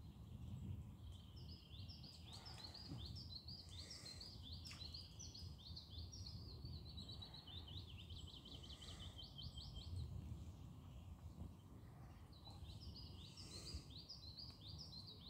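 A small songbird singing long, fast runs of short high notes, pausing for a couple of seconds before starting again near the end, over a faint low rumble.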